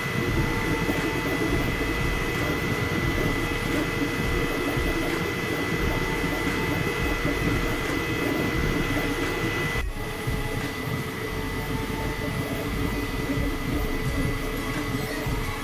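Elegoo FDM 3D printer running a print: its fans and stepper motors give a steady high tone and a lower tone over a dense mechanical hum. There is a brief break about ten seconds in.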